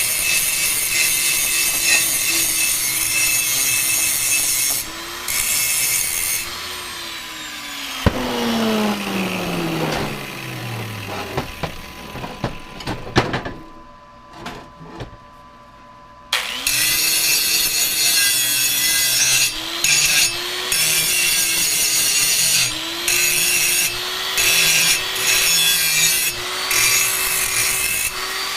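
Electric angle grinder working steel, its motor pitch dipping as it bites. It is switched off about 7 seconds in, winding down with a falling whine over about 3 seconds. After a few seconds of knocks it is restarted and works the metal again in short passes.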